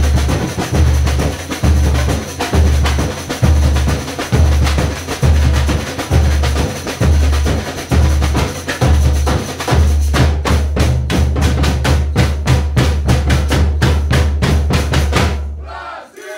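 Samba drum band playing: surdo bass drums beat a steady pulse under snare drums and other percussion. About ten seconds in they break into a fast, continuous run of even strokes, a closing roll that stops abruptly near the end.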